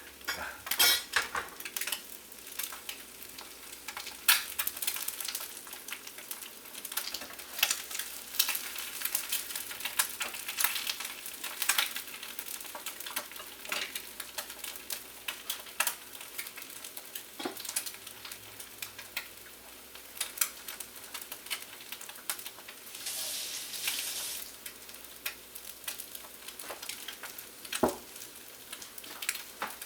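Eggs frying in hot oil in a pan, a steady sizzle with frequent sharp pops and crackles; the hiss swells louder for a moment about 23 seconds in.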